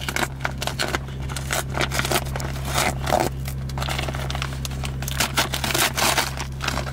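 A sealed package being torn open and handled: irregular crinkling, tearing and scraping noises, over a steady low hum.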